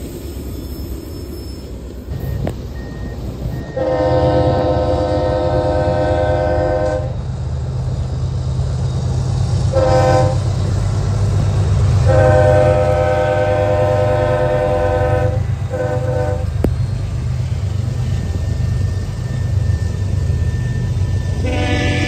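Freight train's diesel locomotives sounding a multi-note air horn: a long blast, a short one, another long and a short, then a fifth starting near the end. Underneath is the steady low rumble of the diesel engines as the train comes up and passes.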